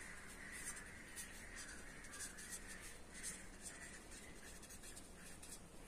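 Marker pen writing on paper: a run of faint, short scratching strokes.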